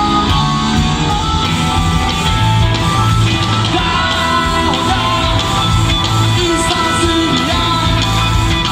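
Live rock band playing loud through a PA, with electric guitars, drums and a singing voice.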